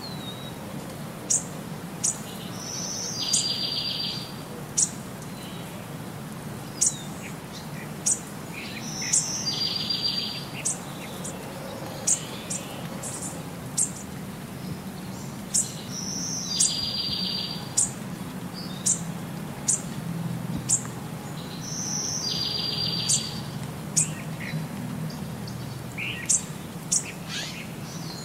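Birdsong: sharp high chirps every second or so, and a buzzy trill that comes back about every six seconds in the same pattern, over a low steady hum.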